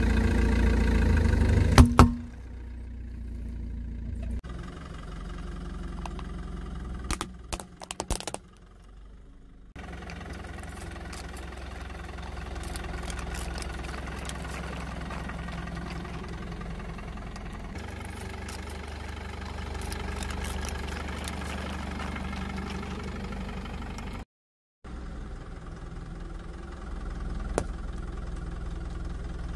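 A car's engine idling as it creeps forward, its tyre crushing plastic dominoes, plastic cups of paint and a squash on asphalt. Sharp cracks and snaps stand out about 2 seconds in and again in a quick cluster around 7 to 8 seconds.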